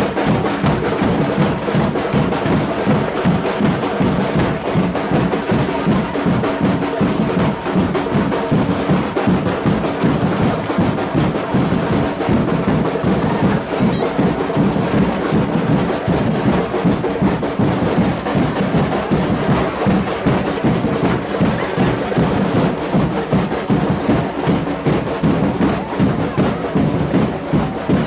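Samba percussion band drumming a fast, steady beat on large bass drums and metal-shelled drums.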